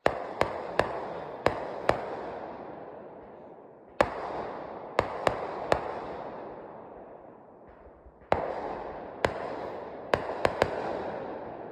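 Aerial fireworks going off in three volleys, each a string of sharp bangs followed by a long rolling echo that dies away over several seconds.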